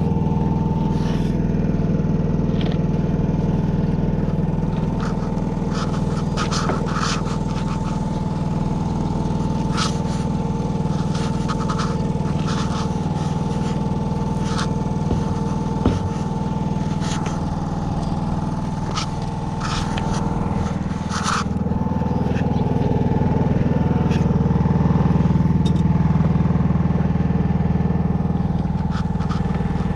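An engine running steadily at idle, a little louder for a few seconds past the middle, with scattered light clicks over it.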